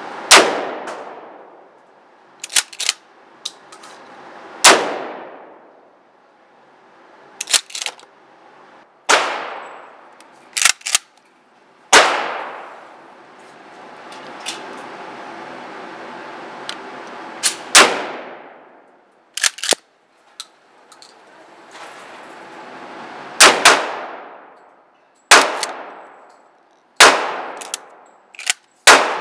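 12 gauge pump shotgun firing low-recoil slugs, about ten shots spaced a few seconds apart, each blast echoing and fading in an indoor range. Short paired clacks sound between many of the shots.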